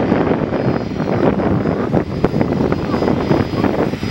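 A business jet's engines running steadily at low taxi power: a continuous rumbling rush with a faint high turbine whine above it.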